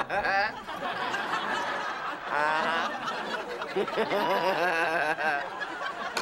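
A woman laughing: a long, continuous run of snickering laughs with a wavering pitch, loudest a couple of seconds in.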